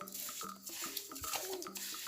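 Light background music with a steady, repeating beat and short bouncing notes.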